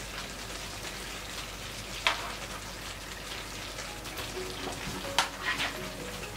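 A pan of chickpea and vegetable curry simmering on the stove with a steady low sizzle. A few sharp clicks of a utensil come about two seconds in and again around five seconds in.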